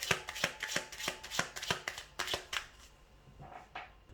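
A deck of tarot cards being shuffled by hand: a quick run of papery slaps and rustles that thins out to a few soft rustles about two and a half seconds in.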